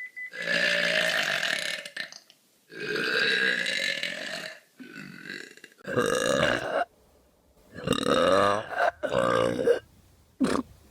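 Human burps: a run of about seven loud belches one after another, the first two drawn out for nearly two seconds each, the last one short.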